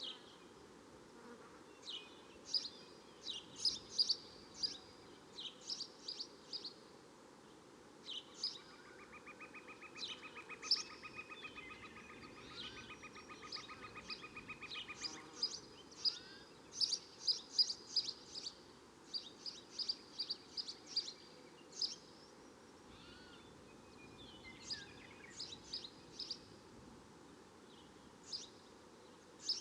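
Swamp and jungle ambience: birds giving many short, sharp, high chirps in irregular runs, with a rapid pulsed trill from about eight to fifteen seconds in, over a steady low background hiss.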